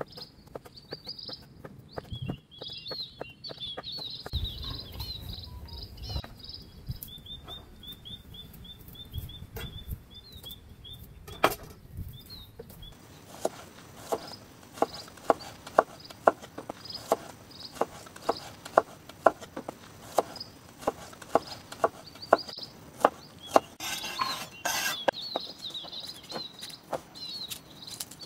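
Kitchen knife chopping on a wooden cutting board: irregular cuts through tempeh, then from about halfway a steady run of sharp knocks, about two a second, as shallots are sliced. High-pitched chirping goes on behind it.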